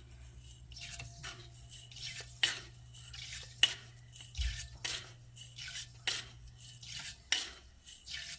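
A metal spoon clinking against a pot or jar about once a second as sugar is spooned into milk, teaspoon by teaspoon, with a faint steady hum that stops about seven seconds in.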